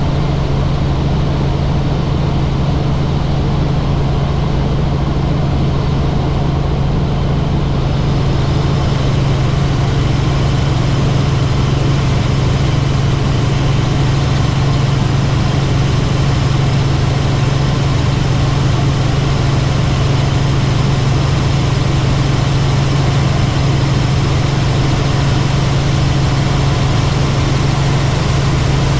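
Helicopter in flight: a loud, steady drone of engine and rotor with a strong low hum beneath a rushing noise, the hiss growing a little brighter about eight seconds in.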